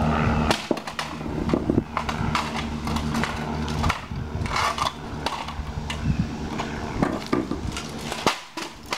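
A DVD player thrown repeatedly onto a concrete path: a series of sharp clattering knocks of its plastic and metal casing hitting the ground and breaking apart, over a steady low hum.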